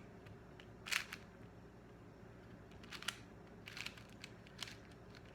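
Plastic clicks of a 4x4 Rubik's cube's layers being turned during solving of the centers, single sharp clicks and small clusters at irregular intervals.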